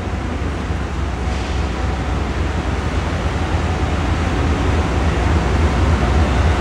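Diesel locomotive rolling slowly up to the platform, its engine giving a deep, steady rumble that grows slowly louder as it draws near.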